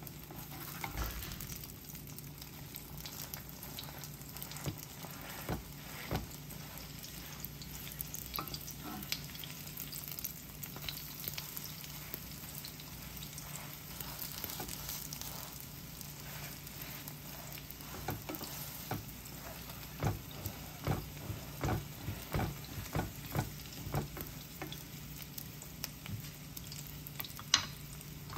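Green garlic and egg jijimi sizzling in oil in a frying pan, with a wooden spatula tapping and scraping against the pan. A quick run of taps comes in the second half, and one sharper knock comes near the end.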